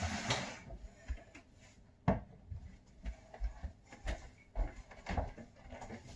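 Handling noises: irregular knocks and clicks of things being moved about, the sharpest about two seconds in, with quieter scattered ones after.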